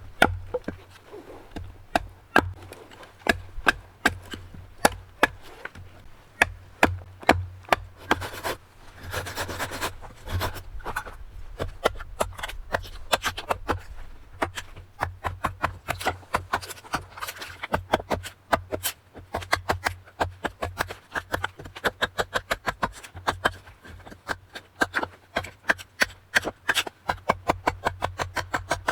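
Wood being carved with a blade, a kuksa cup being shaped: a long run of short, sharp cuts, several a second, with a few stretches of scraping.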